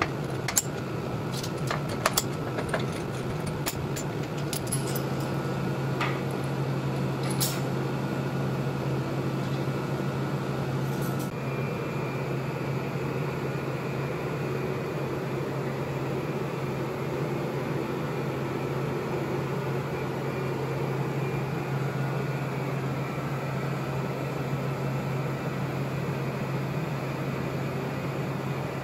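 A steady hum from a shop fan or air-conditioning unit. In the first several seconds it is joined by a few sharp metallic clicks and clanks as clamps are set on the steel welding-table frame.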